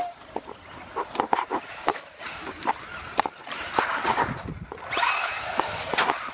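Battery-powered RC truck's electric motor whining, the pitch rising as it speeds up about five seconds in. Scattered knocks and rattles come from the truck bouncing over the ground.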